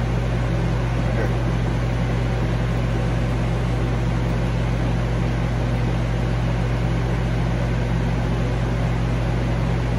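Steady machine hum with an even hiss underneath, unchanging throughout.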